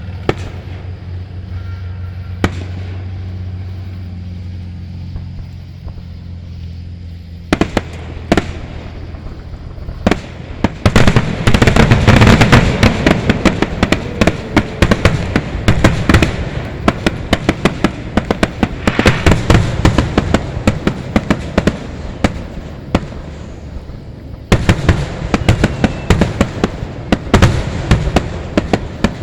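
Fireworks display going off: a few separate bangs over a steady low hum, then from about ten seconds in a dense, rapid barrage of bangs and crackles that eases briefly and picks up again near the end.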